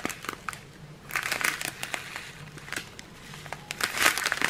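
Small plastic zip bags of round diamond-painting drills crinkling in the hands as they are turned over. The rustle comes in three spells: at the start, about a second in, and loudest near the end.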